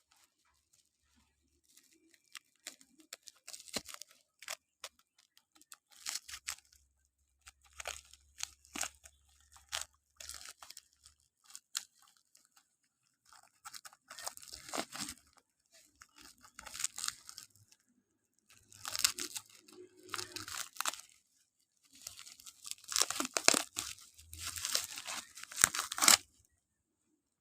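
Parcel packaging being torn open and handled: repeated bouts of crinkling and tearing that come in irregular spells and grow louder near the end.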